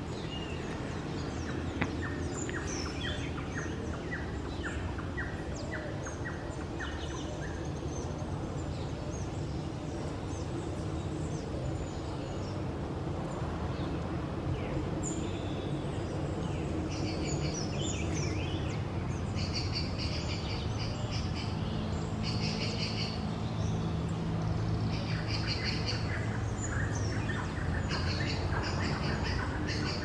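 Wild birds chirping and calling in the treetops: trains of short, rapidly repeated high chirps, busier and louder in the second half, over a steady low background rumble.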